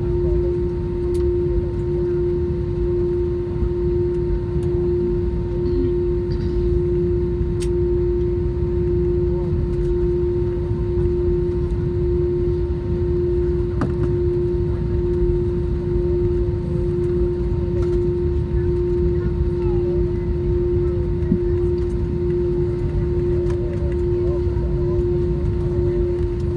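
Cabin noise inside an Airbus A321 taxiing on the ground: a steady low rumble with a strong unbroken hum over it, and a few faint clicks.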